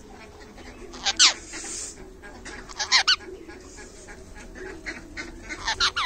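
Parrot squawking: three short calls, about a second in, near three seconds and again at the end, each sliding sharply down in pitch.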